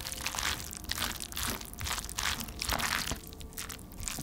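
Chopsticks stirring and lifting sauce-coated instant stir-fried noodles (Nongshim Shin Bokkeutti) in a paper cup: a run of short, noisy strokes, about two or three a second.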